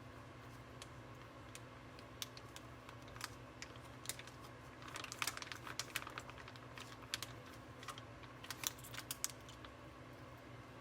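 Irregular light clicks and taps, a few at a time and then a denser run through the middle, over a steady low hum.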